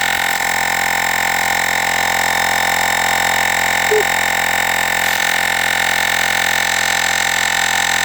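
Olgeo M7 portable air compressor running steadily, pumping air into a flat tire that has reached about 21 psi.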